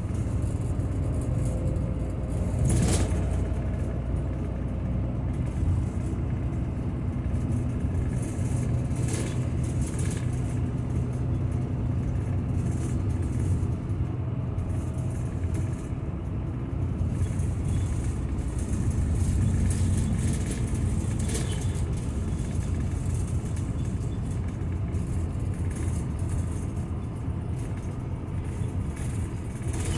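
Steady low rumble of a route bus's engine and road noise, heard from inside the moving bus, with a few short clicks scattered through it.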